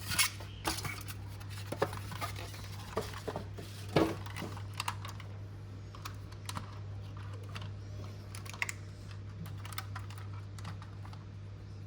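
Light clicks and taps from handling a 1:24 scale diecast model car and its plastic packaging, most frequent in the first half with a sharper knock about four seconds in, then sparser. A steady low hum runs underneath.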